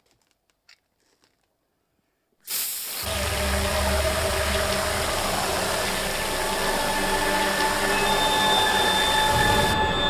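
Aerosol can of cockroach-killing foam spraying: a loud hiss that starts suddenly a couple of seconds in and drops its highest part near the end, over a low rumble.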